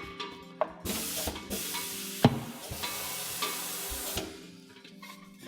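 Tire changer's pneumatic bead breaker hissing with compressed air for about three seconds as it pushes the tire bead off the wheel, with one sharp clack partway through. Background music plays underneath.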